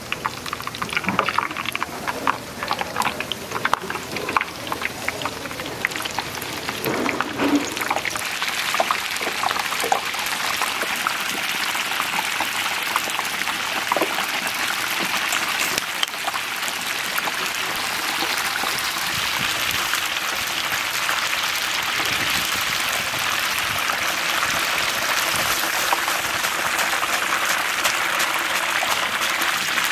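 Batter-coated chicken gizzards deep-frying in a large pan of hot oil. There is sharp popping and crackling as pieces drop in. After about eight seconds this settles into a steady, dense sizzle as the pan fills.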